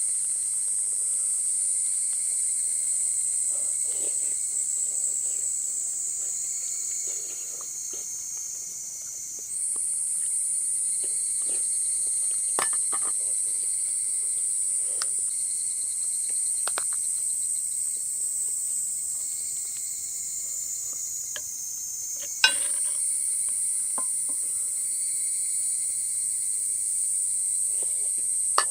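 Steady high-pitched insect chorus that drifts slightly lower and jumps back up abruptly twice, with scattered faint clicks beneath it.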